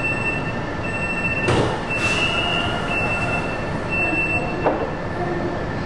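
Fuzhou Metro Line 4 six-car automatic train running slowly in a tunnel, heard from the front cab. A high, steady-pitched wheel squeal comes and goes over the running noise. There is a sharp knock about a second and a half in and a lighter one near the end.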